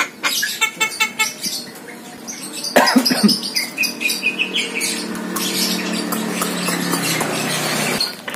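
Javan myna calling, with short chirps and squawks, then a loud harsh squawk about three seconds in. A steady hum follows and stops suddenly shortly before the end.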